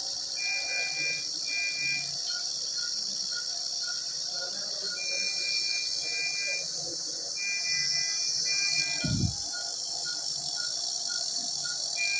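Electronic alarm beeping in a repeating cycle: pairs of longer high two-tone beeps alternate with runs of about seven quicker, lower beeps, over a steady high hiss. A brief low thump comes about nine seconds in.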